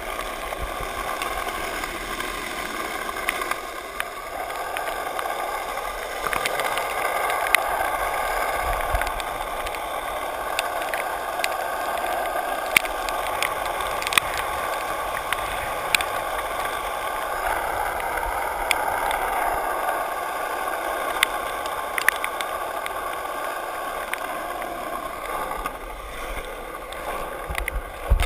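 Skateboard wheels rolling on wet asphalt: a steady wet hiss, broken by scattered sharp clicks and a few louder knocks near the end.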